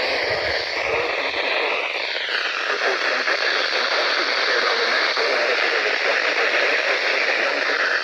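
Radio receiver static: a steady hiss, with faint wavering whistle tones that dip and fade out in the first three seconds.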